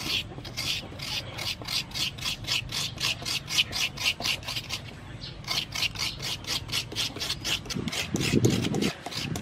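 Fresh coconut meat being scraped out of a half shell with a hand scraper: quick, rasping strokes, about three or four a second, with a brief pause midway and a duller rub near the end.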